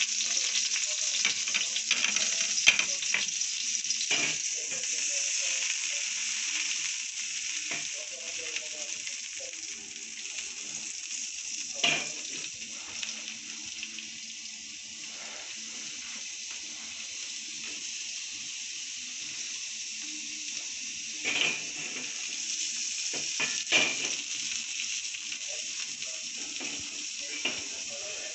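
Butter sizzling steadily as it melts in a nonstick frying pan on a gas burner, with a few light knocks now and then.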